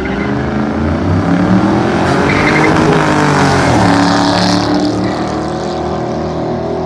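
Car engines revving as the cars accelerate past close by, the pitch climbing and then dropping, with a burst of tire squeal about four seconds in.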